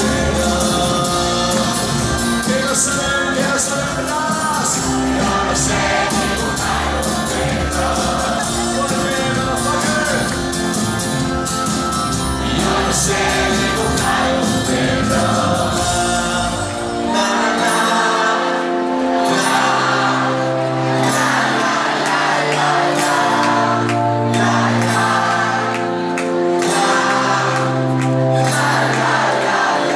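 Pop-rock band playing live in a concert hall, heard from the crowd: drums, guitars and bass with singing, then a little over halfway through the drums drop away, leaving held keyboard-like chords over low sustained notes.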